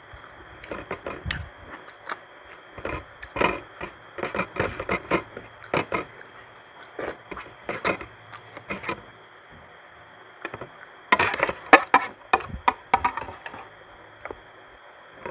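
Close-up eating sounds: a run of short clicks and taps from chewing and from a spoon and fingers against plates, in two bouts with a quieter pause of about two seconds between them.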